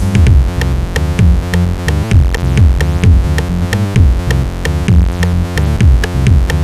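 Background electronic music with a steady beat and synthesizer chords.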